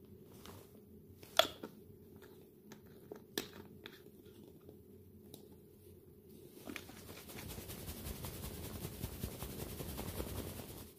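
Clear plastic bottle of liquid soap being handled, with a few sharp plastic clicks as its cap is fitted. From about two-thirds of the way in it is shaken hard for about four seconds, the soap sloshing and frothing inside, and the shaking stops suddenly near the end.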